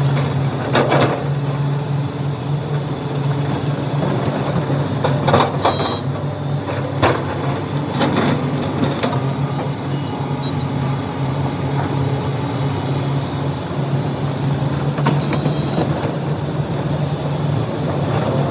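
Hitachi 470 excavator's diesel engine running steadily under working load while loading overburden. Several sharp knocks and clanks come through, two of them with a brief high metallic screech.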